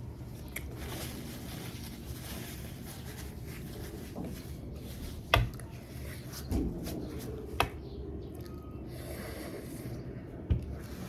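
A person sniffling and breathing hard through the nose from the burn of an extremely hot chili chip, with rubbing and rustling like a tissue being handled. Three sharp knocks come about five, seven and a half and ten and a half seconds in.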